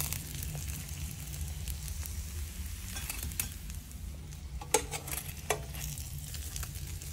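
Food sizzling as it fries in hot fat in a pan, with a utensil stirring it. Two sharp knocks of the utensil against the pan come about two-thirds of the way through.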